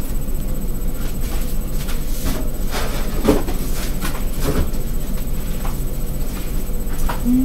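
Scissors snipping a plastic drinking straw: a few separate short snips and clicks over a steady background hum.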